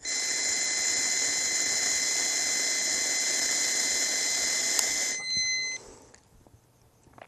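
A long, steady breath blown into a handheld breathalyzer's mouthpiece while the tester sounds a continuous high beep, as it does while taking a breath sample. The blowing stops about five seconds in, and the beep stops half a second later.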